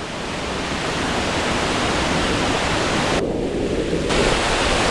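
Waterfall: a steady rush of falling water, briefly dulled in its higher range for about a second a little past three seconds in.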